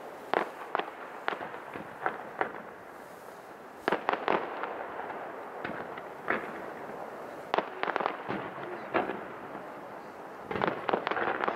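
Aerial fireworks shells bursting in a run of sharp bangs at uneven intervals. Some come in quick clusters about four, eight and eleven seconds in, over a steady background hiss.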